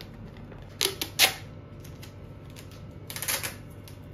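Clear packing tape pulled off its roll in short, sharp rips: two or three about a second in, then another quick run about three seconds in.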